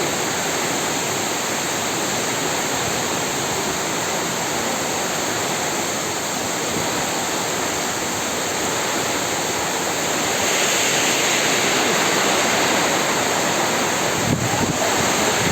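Heavy rain pouring down in strong storm wind, a steady rushing hiss that swells a little louder about ten seconds in. A brief low knock sounds near the end.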